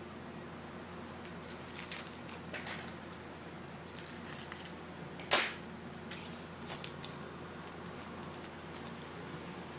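Foil wrappers of baseball card packs crinkling and tearing as packs are opened by hand: a run of short crackles, with one sharp, much louder crackle about five seconds in.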